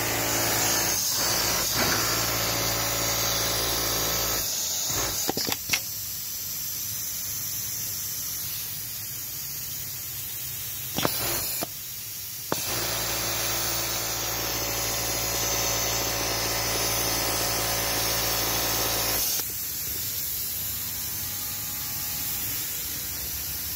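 Siruba industrial bottom-hem sewing machine stitching a garment hem, running steadily in two long runs of several seconds and stopping in between, with a few sharp clicks in the pauses. The steady hiss and hum of a garment factory floor continue underneath.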